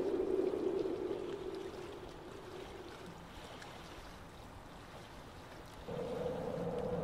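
Dark ambient soundscape. A sustained low drone fades away over the first few seconds, leaving a quiet, even rushing hiss, and a new, higher drone comes in about six seconds in.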